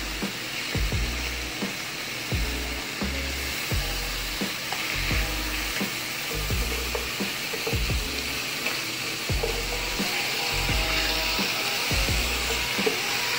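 Crappie and striper fillets sizzling in hot oil in a skillet, a steady hiss. Background music with a steady beat plays over it.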